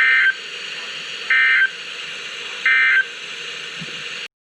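NOAA Weather Radio broadcasting the Emergency Alert System end-of-message code: three short bursts of data tones about 1.3 seconds apart, over a steady radio hiss. The bursts signal the end of the severe thunderstorm warning message. The audio cuts off suddenly just after four seconds in.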